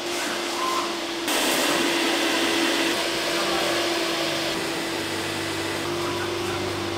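An electric motor running with a steady whine and a rushing-air hiss, stepping up louder a little over a second in.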